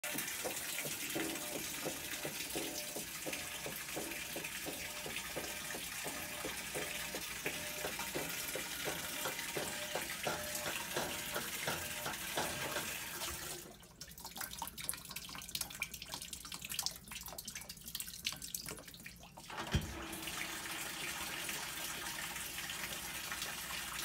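Maytag top-load washer filling: water rushes steadily into the tub, stops about 14 seconds in, then starts again with a low thump about 20 seconds in. The washer is in its load-sensing and fill stage.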